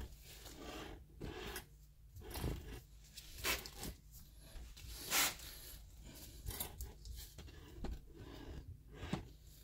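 Faint scattered scrapes, clicks and rustles of hands working a Honda Prelude's CV axle into place, with the loudest short scrape about halfway through.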